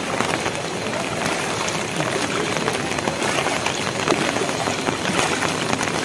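Steady heavy rain falling on a flooded road: an even hiss of water with many small patters.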